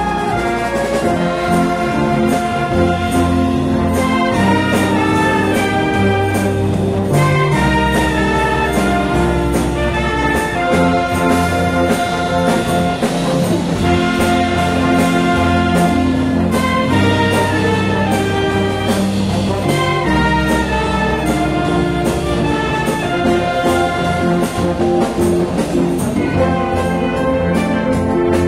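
Wind band of clarinets, flutes, saxophones and brass playing an arrangement of Brazilian pop-rock songs, with a moving bass line and a steady beat.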